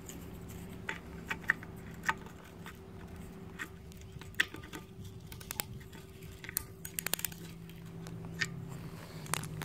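Light, irregular plastic clicks and ticks from the black plastic breather cap on an air compressor pump's crankcase as it is twisted and handled by hand, over a faint steady hum.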